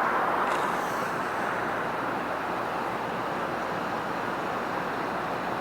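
Steady road and wind noise of a vehicle travelling, with no clear engine note standing out.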